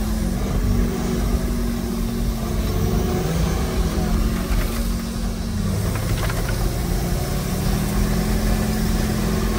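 Off-road vehicle's engine running at fairly steady revs while driving, its pitch wavering slightly in the middle.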